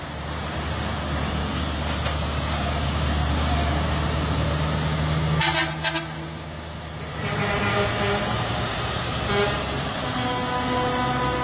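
Race-team transporter semi-trucks driving past with a steady low engine drone. Two quick horn toots about halfway through, and a held pitched horn sound over the last few seconds.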